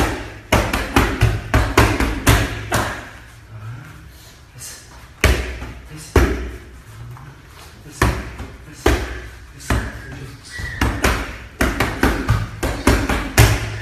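Gloved punches landing on focus mitts in fast combinations: sharp slaps, several in quick succession, with short pauses between the combinations.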